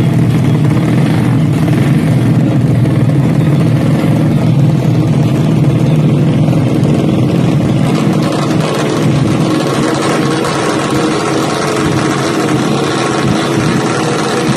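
Yamaha Mio-based automatic scooter drag bike's engine running loud and steady at the start line, held at even revs while the bike is staged.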